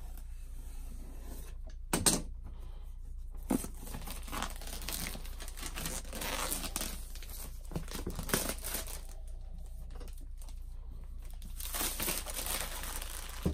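Clear plastic wrapping crinkling and tearing as it is pulled off a cardboard collectible box, with a few sharp clicks of the box being handled.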